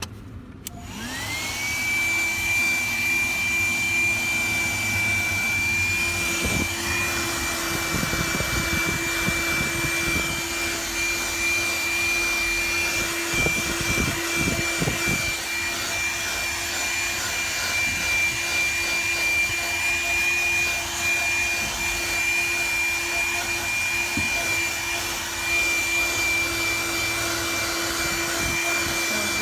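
Hikeren 12-volt 106 W handheld wet/dry car vacuum switching on about a second in, its motor spinning up to a steady high whine with a rush of air through the nozzle.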